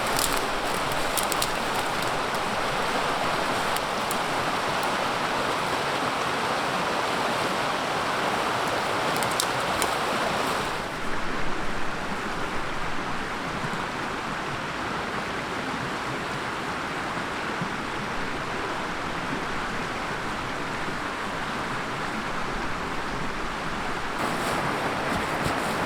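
River water rushing steadily, with a few faint clicks in the first ten seconds. About eleven seconds in, the rush turns slightly softer and duller.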